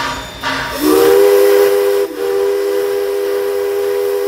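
Steam locomotive's whistle blowing. A short hissing toot at the start, then about a second in a long chime-like blast of several notes together that holds steady, with a brief dip near the middle.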